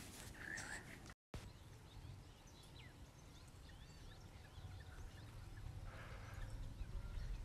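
Faint outdoor ambience: scattered bird chirps over a low rumble, with a brief dropout in the sound about a second in.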